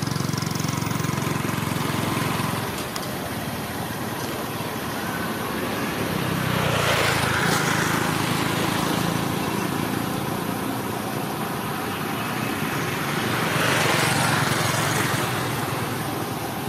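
A motor engine running steadily in the background. Its hiss swells up louder about seven seconds in and again about fourteen seconds in.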